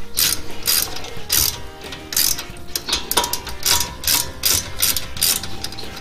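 Hand ratchet fitted with an 8 mm Allen (hex) socket, clicking in short repeated bursts, a few a second, as it is swung back and forth to undo the brake caliper bolts.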